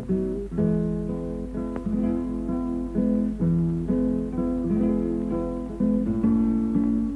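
Acoustic guitar music: plucked and strummed chords in a steady rhythm, the chord changing about every half second.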